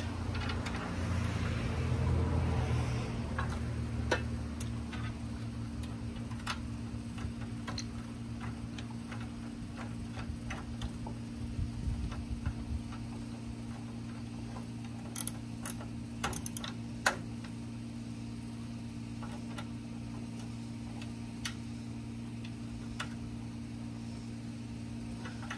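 Scattered small clicks and taps of plastic and metal hood-latch parts and a screwdriver being handled and fitted, with a few quick clicks together past the middle, over a steady low hum.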